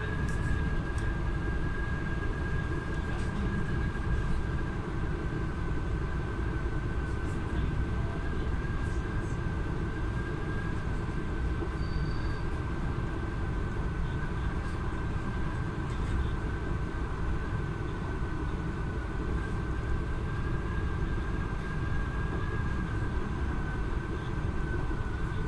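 Passenger train running at speed, heard from inside the carriage: a steady low rumble of wheels on the track with a constant high-pitched whine over it.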